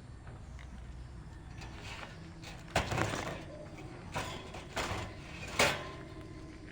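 Common flameback woodpecker pecking: about five irregular sharp knocks over roughly three seconds, the last one the loudest.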